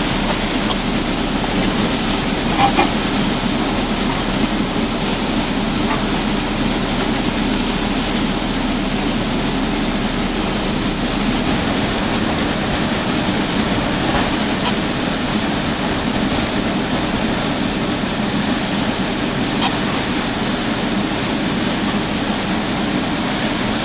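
Steady noise of hurricane wind and driving rain, with storm-driven waves splashing against a marina seawall and docks.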